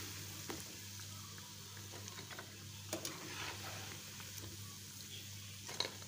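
Faint sizzle of gram-flour fritters frying in hot oil, with a few light knocks as a steel slotted spatula sets the fried fritters onto a ceramic plate.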